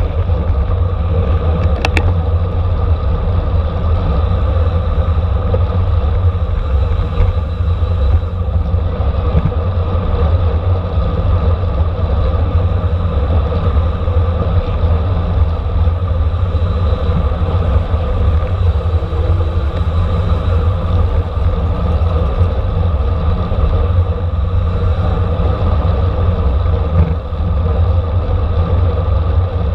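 Steady wind rush and low rumble on a bicycle-mounted camera's microphone at racing speed, with tyre and road noise under it. A single brief click comes about two seconds in.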